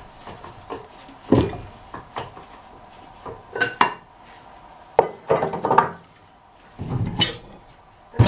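Steel parts of a two-speed truck rear axle's differential, such as bearings, being handled and set down: a handful of separate clanks and clinks, a couple of them ringing briefly.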